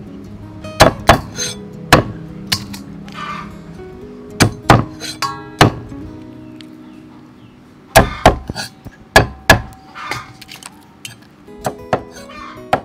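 Background music with steady tones, over which come about a dozen sharp knocks and clinks at irregular spacing, several in quick pairs, from shrimp being handled in a steel bowl and cut on a wooden board.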